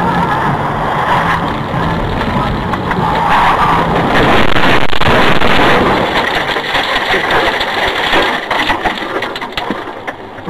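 Vehicle running with engine and road noise, which swells loud for a couple of seconds mid-way, followed by a run of knocks and clatter near the end.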